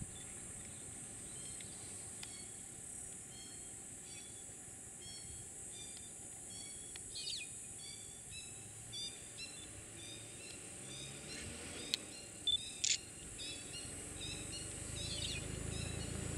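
Open bush ambience: a steady high hiss with many short, repeated bird chirps throughout and a couple of rising whistled notes. Three sharp clicks come about twelve seconds in.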